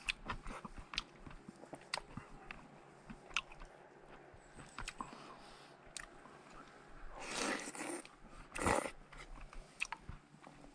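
A person eating soup and rice: chewing, with a wooden spoon clicking and scraping against an aluminium Trangia mess tin. Two louder rushing sounds come about seven and nine seconds in.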